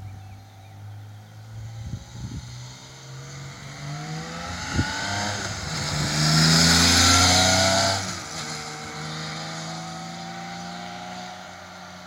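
Freshly tuned Honda CBX's inline-six engine on its stock exhaust, revs climbing over several seconds and loudest for about two seconds. Then the throttle closes, the revs drop suddenly and settle to a lower, steadier note.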